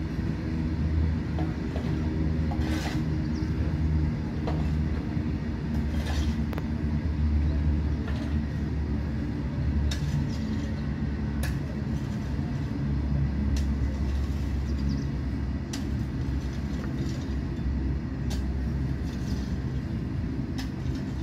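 Freight train of tank wagons rolling past: a steady low rumble, with sharp clacks every one to two seconds.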